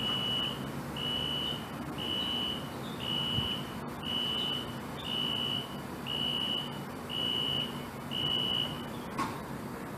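Fire alarm horn sounding a steady high-pitched beep about once a second, each beep nearly a second long; the pulsing stops about nine seconds in. It is a gate alarm warning of an approaching car, a horn-only unit that the uploader likens to a Wheelock NS or Exceder.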